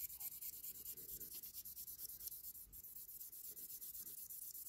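Double-sided buffer block rubbed back and forth over a diecast model car's clear window unit, a faint scratchy rubbing in quick, regular strokes, polishing the scuffed glazing clear.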